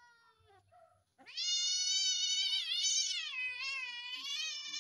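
Domestic cat yowling in distress while being held down and castrated: one long, loud cry that wavers in pitch, starting about a second in.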